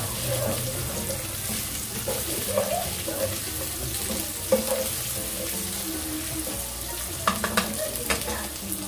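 Onion, garlic and ginger sautéing in hot oil in a pan: a steady sizzle while a spatula stirs them, with a few sharp knocks of the spatula against the pan near the end.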